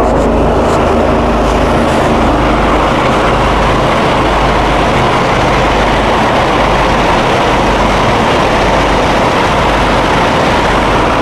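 Twin-engine cold-water trailer sewer jetter running steadily at full pressure (18 GPM at 4,000 PSI), with the high-pressure nozzle pulling itself through 24-inch corrugated pipe. The engine drone is joined by the loud rush of water spray blasting out of the pipe's open end.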